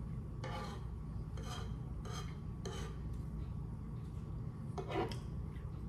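Eating sounds in a mukbang: about five short, scratchy scraping noises over a steady low hum.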